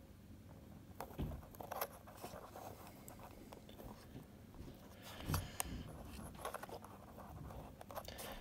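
Faint handling of thin card: fingers pressing and sliding cut card roof-tile strips along a card model roof. It comes as light scrapes and small clicks, a few louder about a second in and again around the middle.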